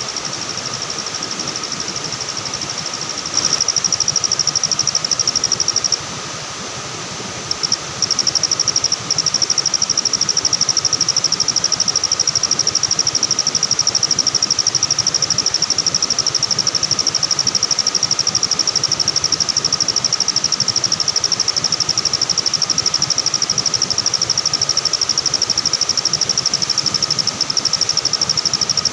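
Night insects trilling loudly: a continuous high, rapidly pulsing trill with a fainter steady high note beneath it, growing louder about three seconds in and breaking off briefly about six seconds in.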